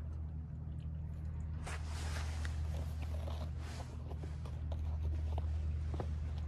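Outdoor ambience: a steady low rumble with faint scattered small clicks and soft rustles over it.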